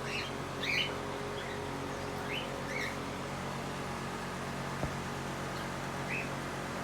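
Cockatiel giving short chirps, a cluster in the first three seconds and one more near the end. A single sharp click comes about five seconds in, and a steady low hum runs underneath.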